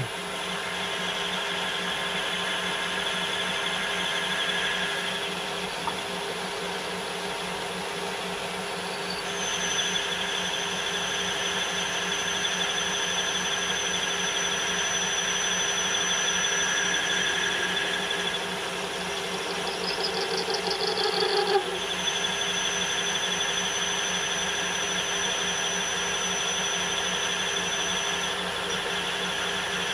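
Metal lathe running while a parting tool cuts into the piston stock, with a steady motor hum. A thin high whine from the cut comes in about nine seconds in. Around twenty seconds in there is a brief rising whir with a rattle, and then the whine returns.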